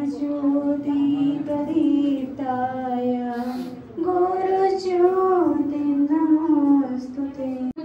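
A female voice singing a slow melody in long held notes that step up and down in pitch.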